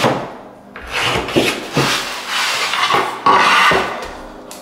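Pieces of hardwood flooring rubbing and scraping against each other in a series of short strokes. The loudest stroke starts abruptly a little over three seconds in.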